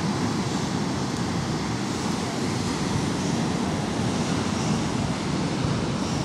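Steady wind and ocean surf noise, with wind rumbling on the microphone.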